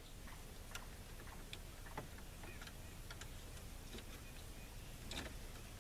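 Faint, irregular light clicks of a hook working at the plastic heater and A/C control knobs on a Ford F-series truck's dash, freeing them from their spring pins.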